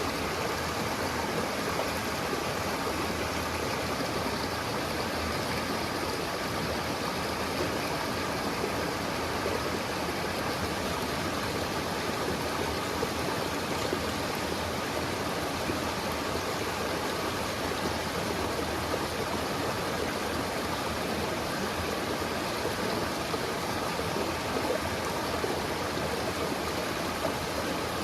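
River water running steadily: the continuous rush of a fast, cold mountain river.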